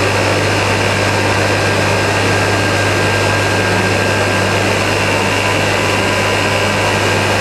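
Steam-driven Tesla bladeless disk turbine running during warm-up: a steady loud rush of steam with a constant low hum and a few thin, steady high tones.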